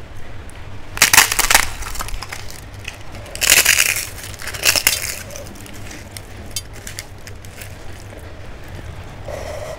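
Crisp papad crunching in three loud bursts, about one, three and a half and four and a half seconds in, with fainter crackles between.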